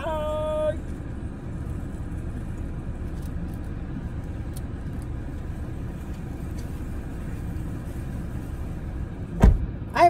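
Steady low rumble inside a parked car, then a single heavy thump near the end as a car door is shut.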